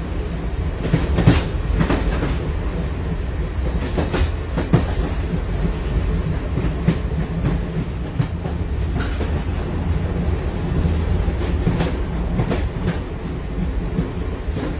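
Running noise of a moving train heard from inside: a steady low rumble with irregular clacks and knocks of the wheels over the rails.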